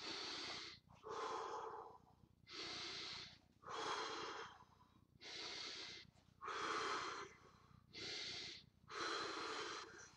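A man breathing deeply and audibly in a slow, even rhythm: eight long breaths, each just under a second, with short pauses between them. This is a controlled recovery breathing drill straight after a set of kicks.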